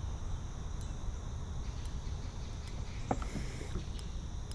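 Steady low rumble with insects, likely crickets, droning in steady high tones. About three seconds in comes a single knock of rod or reel handling, followed by a brief hiss.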